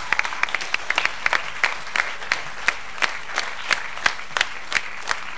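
Audience applauding. About a second in, it falls into rhythmic clapping in unison, roughly three claps a second.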